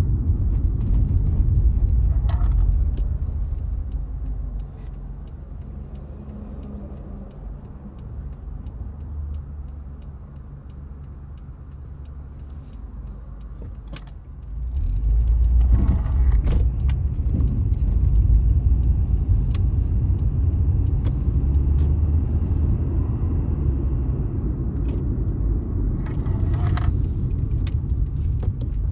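Engine and road noise heard from inside a car: a low rumble that falls to a quieter idle for several seconds while the car waits at a junction, then rises again about halfway through as it pulls away and drives on. Small clicks and rattles in the cabin run throughout.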